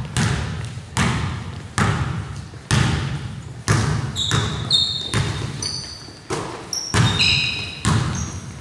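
Basketball dribbled on a hardwood gym floor, with a bounce every half-second to a second, each echoing in the big hall. Sneakers squeak on the floor in short clusters in the second half.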